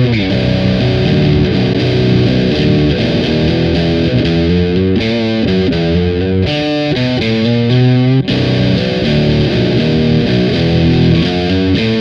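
Fender Jazzmaster electric guitar on its bridge pickup, tuned to C standard, playing a riff through Boss DS-1 and Nux DS-3 Classic Distortion pedals, switched back and forth between the two. The distorted tone changes abruptly about eight seconds in.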